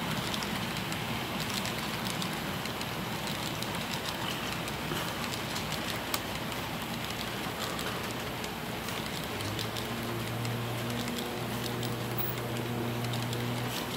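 Freight cars rolling past on the rails: a steady rushing clatter of steel wheels, with frequent sharp clicks. Past the middle, a low steady hum joins in.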